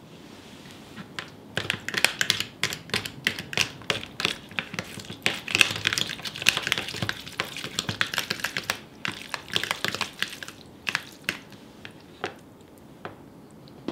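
A metal fork chopping up set white wine jelly in a plastic tub, tapping and clicking rapidly against the plastic. The taps begin about a second and a half in and thin out to a few scattered clicks near the end.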